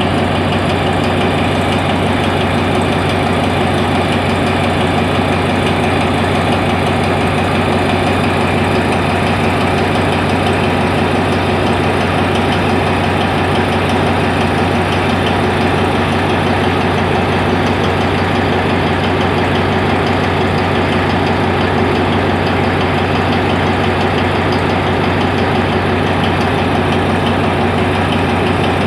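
Diesel locomotive engine idling steadily, with a constant low hum that does not change.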